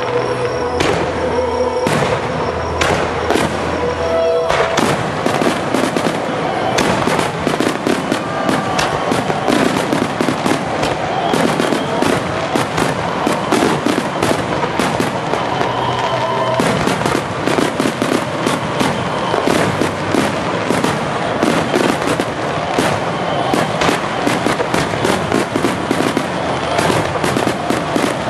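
Star mine fireworks barrage: shells launching and bursting in rapid, unbroken succession, a dense continuous crackle of reports.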